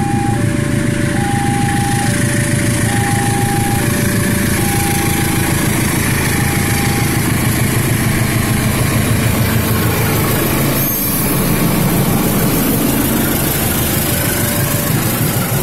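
General Electric diesel-electric locomotive passing close with a heavy engine rumble, hauling its train past a level crossing. The crossing's warning alarm sounds an alternating high and low tone, fades out about seven seconds in and comes back near the end.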